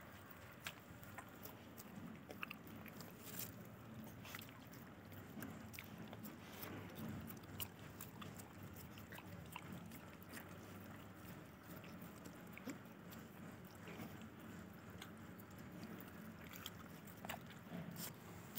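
Puppies eating small scraps of food off a concrete floor: faint, irregular crunching, licking and snuffling clicks.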